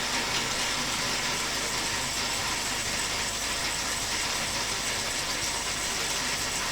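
A motor-driven robot arm joint geared through a harmonic drive, running steadily as an arm section is moved down. It makes an even, high mechanical whir.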